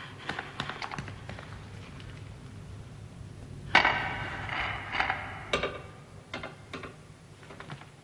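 Knocks and clunks as the heavy lid of a tomb is worked open, with one loud impact about four seconds in, then several more knocks that die away.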